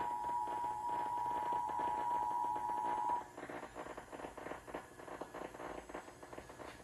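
Emergency Alert System two-tone attention signal played back from a VHS recording through a TV speaker: a steady, high alert tone that cuts off about three seconds in, leaving faint background noise.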